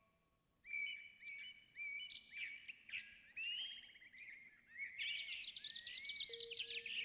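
Songbirds chirping and singing in short, varied phrases and quick trills, several calls overlapping, starting about half a second in. A steady low tone comes in near the end.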